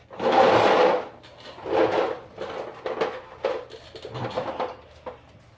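Metal brake parts scraping and clunking as the caliper and pads are worked into place over the rotor. It comes in several short bursts; the first is the longest, at about a second.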